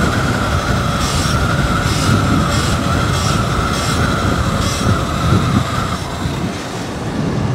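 Steady high-pitched whine of a personal electric vehicle's motor while riding, over low wind rumble on the microphone; the whine cuts off about six seconds in.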